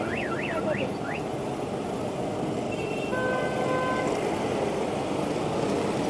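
Busy city road traffic with engines running. There is a fast up-and-down electronic warble for about the first second, and a vehicle horn sounds one steady note for about a second midway.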